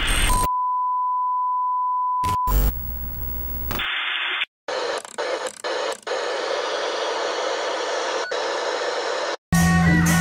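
Intro sound effects: a steady beep tone lasting about two seconds, crackling glitch bursts, then several seconds of TV-static hiss that drops out briefly a few times. Music with a drum beat starts near the end.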